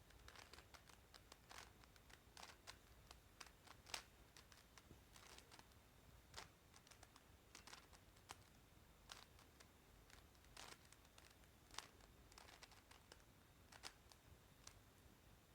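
Faint, irregular clicks and clacks of a plastic speedcube's layers being turned by hand during a solve.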